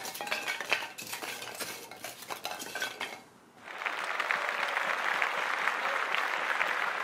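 Hard 3D-printed plastic letters clattering and knocking on a tabletop as they are set upright, many sharp clicks in the first three seconds. From about three and a half seconds in, a steady dense crackle of applause.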